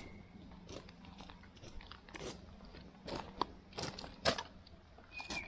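Footsteps crunching on a rocky trail, an irregular walking pace of short sharp steps with one louder step about four seconds in.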